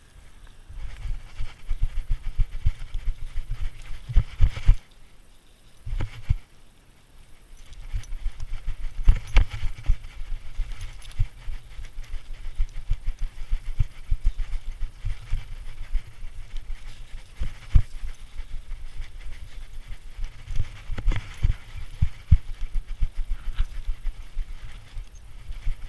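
Handling noise from a dog-mounted GoPro: a dense, irregular rumble of low thumps as the walking dog jolts the camera housing, with occasional sharper knocks. It stops for about a second around five seconds in and again briefly near seven seconds.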